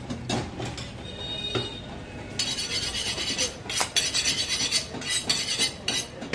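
Metallic clinking and clatter with scattered knocks, getting busier about two seconds in.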